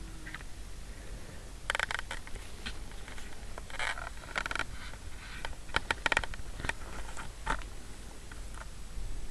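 Short bursts of rustling and scratching, in four clusters, as newborn kittens shuffle about in their bedding.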